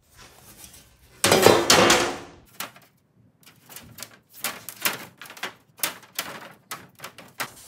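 Metal road signs clacking and knocking against one another as they are flipped through in an upright rack, a quick string of short clicks in the second half. About a second in there is a louder scrape and rattle lasting about a second.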